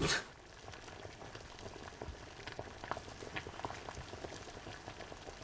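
Faint, irregular crackling ticks in a quiet room.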